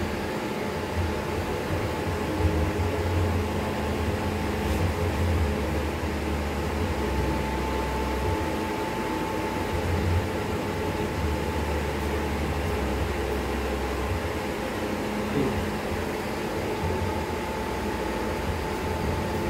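Steady machine hum, low and swelling slightly, with a faint constant whine above it.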